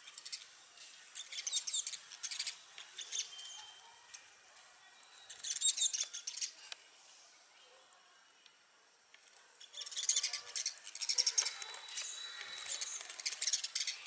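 House sparrows chirping in rapid, high-pitched spells, with a quieter gap in the middle and the busiest chirping toward the end.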